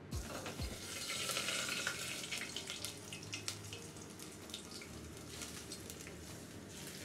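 Hot oil poured over shredded scallion and coriander on a steamed fish, sizzling. The hiss is loudest in the first couple of seconds, then settles into lighter, scattered crackling.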